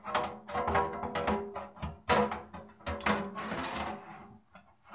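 Sheet-metal cover of an HPE ProLiant MicroServer Gen10 being slid over the chassis: repeated metal scrapes and knocks with a ringing tone, dying down near the end.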